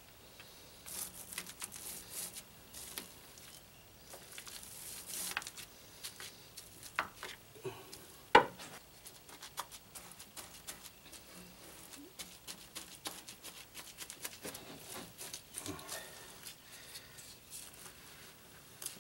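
Small brush dabbing and scrubbing resin into fiberglass cloth on a plywood hull, wetting it out: irregular scratchy rustling and small taps, with one sharp knock about eight seconds in.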